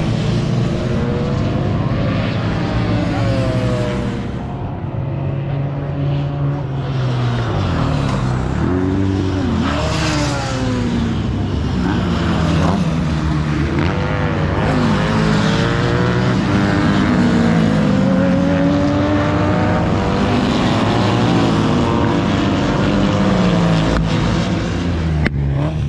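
Several racing motorcycles passing on a circuit one after another, engines revving hard and then dropping in pitch as each goes by, with several engines overlapping.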